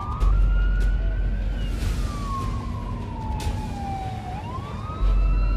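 A siren wailing in a slow cycle: its pitch climbs, slides slowly down over a few seconds, then climbs again near the end. Wind buffets the microphone with a low rumble, strongest at the start and the end.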